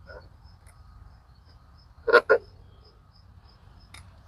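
Faint cricket chirping at an even pace, about three chirps a second. A little over two seconds in, two short, sharp sounds come in quick succession, louder than the chirping.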